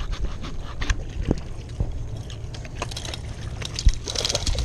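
Scattered knocks and handling noise in a small boat, with one loud thump near the end and a brief rustle after it, over a steady low rumble.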